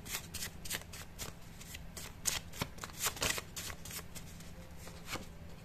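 A deck of cards shuffled by hand: a quick run of soft, sharp card clicks that thins out to a few scattered ones after about three and a half seconds.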